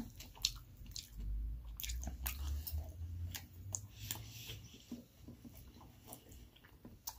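Close-miked chewing of a mouthful of meatloaf, with a sharp click at the very start from a metal fork hitting the metal plate, and a few smaller fork clicks scattered through.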